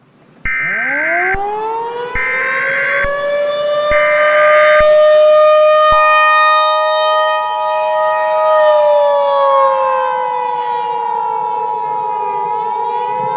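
Outdoor warning siren winding up and holding a steady wail. Over it sound three short data bursts of an Emergency Alert System header, then, about six seconds in, the two-tone EAS attention signal holds steady. In the second half the siren's pitch slowly falls, and it begins to rise again near the end.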